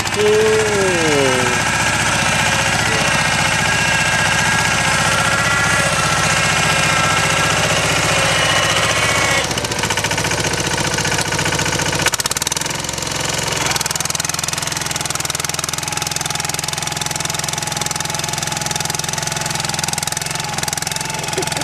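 Yağmur YET-510 walk-behind rotary tiller running as it tills garden soil. The engine runs steadily with a high whine that cuts off suddenly about nine seconds in, and the engine tone changes a little after that.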